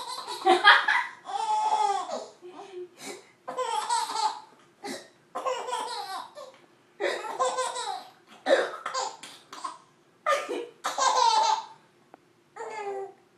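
A baby of about eight months laughing in repeated bouts of belly laughter. A woman makes playful mock coughing noises between the bouts.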